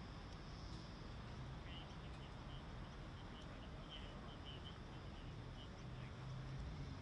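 Quiet outdoor background noise with a low steady hum, and a small bird giving a string of short high chirps from about a second and a half in until about six seconds in.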